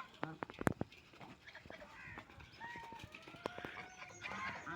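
Ducks calling, with short calls at the start and end and a couple of longer drawn-out calls in the middle, mixed with sharp clicks and taps of bills pecking at food.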